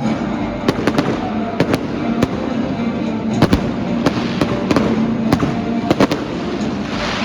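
Fireworks going off: a dense, continuous crackle with many sharp bangs coming every half second or so, under a steady tonal hum or music.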